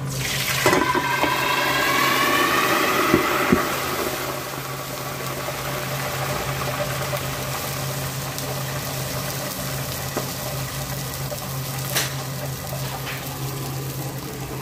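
Hot chicken oil sizzling and spattering loudly as annatto water is poured in. The sizzle eases after about four seconds into a steady hiss, as the aluminium lid goes on with a couple of knocks about three seconds in. A steady low hum runs underneath.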